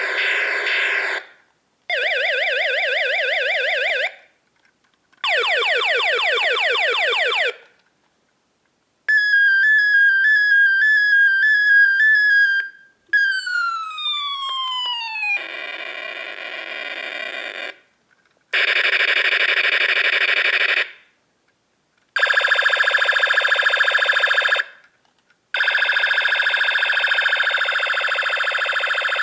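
Creative Merchandise Corp. battery-operated toy ray gun playing its electronic sound effects one after another, each burst two to three seconds long with a short gap between. Among them are a warbling tone and a run of falling zaps.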